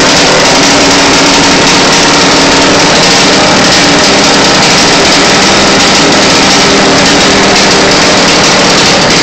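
1991 Honda CR250's two-stroke single-cylinder engine running loud and steady at constant speed, on its first run after a rebuild.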